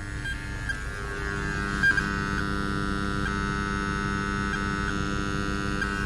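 Interference noise from car speakers fed by a USB-powered Bluetooth AUX adapter: a steady squeal and buzz of several fixed tones with faint regular ticks, growing louder about a second in, with a sharp click near two seconds. It is caused by the adapter's USB power line having no galvanic isolation (a ground loop).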